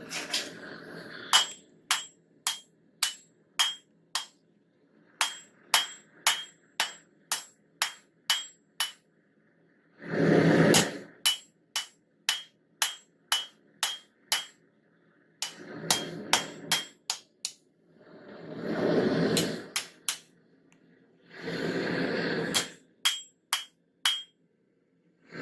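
Hand hammer striking a hot railroad spike on an anvil, sharp ringing blows about two a second in several runs while the spike is forged into a knife. The runs are broken several times by louder rushing noise a second or two long.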